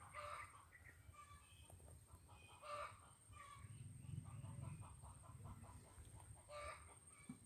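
Faint, short pitched calls of a bird, repeated every two to four seconds, with a thin steady high tone beneath.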